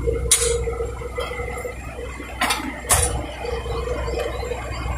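A heavy machine's engine idling with a steady low hum. Three sharp knocks or clicks break it: one about a third of a second in, and two close together near the middle.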